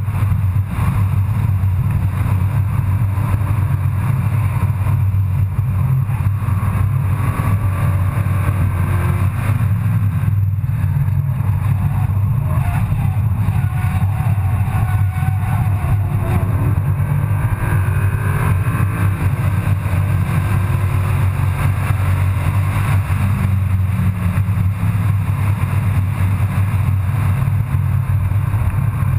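Car engine and tyre noise heard from inside the cabin at track speed: a loud, steady low drone, with the engine note sliding up and down in pitch around the middle.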